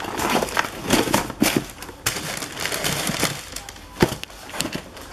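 Tissue paper crinkling and rustling, with cardboard shoe boxes being handled, as sneakers packed in them are moved about. A sharp knock sounds about four seconds in.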